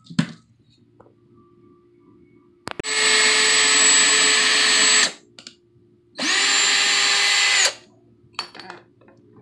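Electric drill driver drilling a hole in a medicine cabinet for a door handle, in two runs of about two seconds and a second and a half. Each run is a steady motor whine, the second winding up and down at its ends, with light clicks of handling between them.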